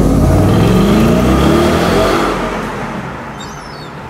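Ford Mustang GT's 5.0-litre V8 revving as the car pulls away past the listener, its pitch rising as it accelerates, then fading as it drives off down the street.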